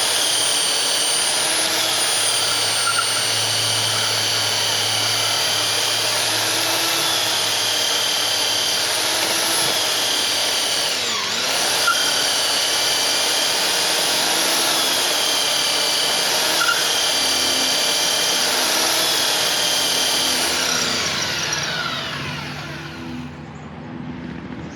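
Makita belt sander running at full speed with a steady high whine while a rubber cleaning block is pressed against the moving sanding belt to clear the clogged sandpaper; the pitch sags briefly under the load near the middle. About three-quarters through it is switched off and the whine falls away as the belt spins down.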